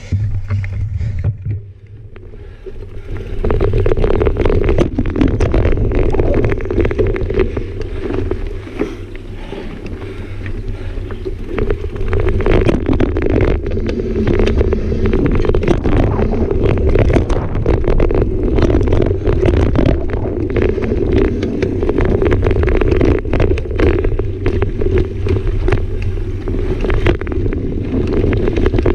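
Mountain bike rolling fast down a dirt singletrack: tyre rumble on the packed dirt with the bike rattling and clicking over bumps and roots, building up about three seconds in and staying loud and steady after.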